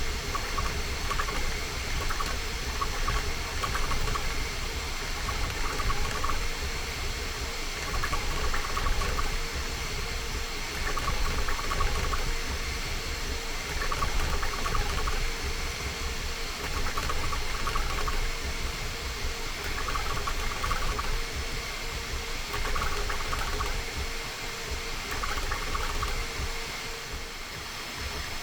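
Bambu Lab A1 Mini 3D printer printing: a steady fan whir with short bursts of higher motor whine every second or two as the print head moves.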